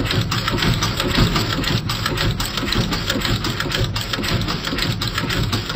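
Automatic through-hole component insertion machine running, pressing electrolytic capacitors into circuit boards with rapid, even clicking and clattering over a low mechanical hum.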